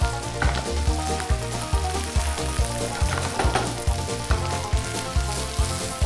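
Sliced veg seekh kebabs, onion rings and green chilli sizzling in oil and butter in a hot pan. Background music with a steady beat, about two beats a second, plays over it.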